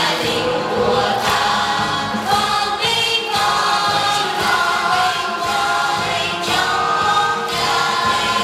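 A choir singing, many voices together on held notes that change every second or so.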